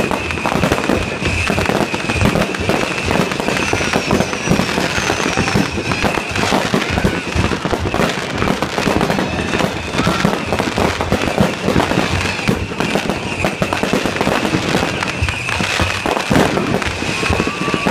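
Consumer fireworks going off in rapid succession: a dense, continuous run of bangs and crackles, with brief whistles about four seconds in. A steady high-pitched tone runs underneath.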